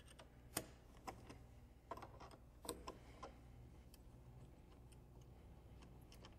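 Faint, irregular metal clicks and taps of a wrench on the nuts of a motor controller's heavy cable terminals, the sharpest of them in the first half.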